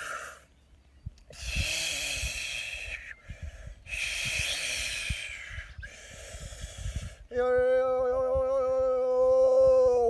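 A man's voice making wordless light-language sounds: two long breathy, hissing exhalations, then a held sung tone starting a little past seven seconds in, the loudest part, that drops away at the very end.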